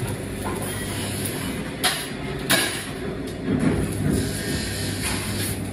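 Workshop noise: a steady electrical hum from the machinery, with two sharp metal clanks a little over half a second apart, about two seconds in.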